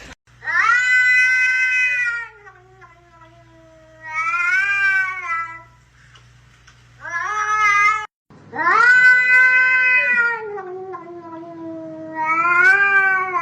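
A domestic cat yowling in five long, drawn-out meows, each lasting a second or two with short gaps between them.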